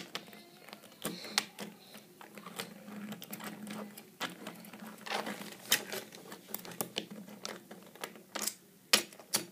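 Light plastic clicks, taps and rattles of a Hot Wheels Extreme Shocks toy truck being pressed down on its adjustable suspension and pushed about by hand on a shelf, irregular and several a second.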